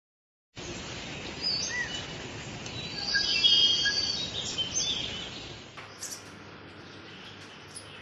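Birds chirping and calling over a steady hiss of outdoor ambience, loudest about three seconds in. Near the end this gives way to quieter background noise with a few faint short chirps.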